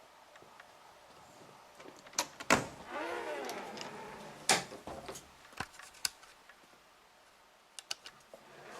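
A few sharp knocks and clacks, with a drawn-out creak lasting about a second and a half after the second knock.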